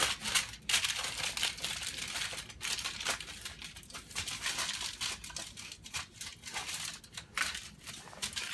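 Heavy-duty aluminum foil crinkling and crackling in irregular handfuls as it is pressed and shaped by hand into a cast iron pot.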